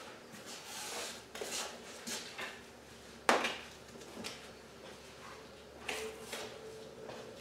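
Scattered rustles and scrapes of a deer hide being worked off a hanging carcass, with one sharp knock about three seconds in.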